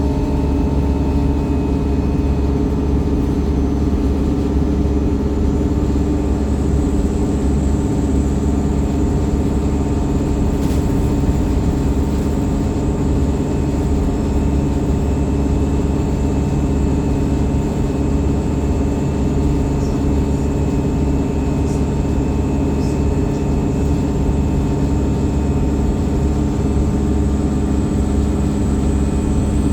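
Wright StreetLite single-deck bus running steadily, going quickly: an even engine drone with a low rumble and a steady thin whine above it. One faint click about eleven seconds in.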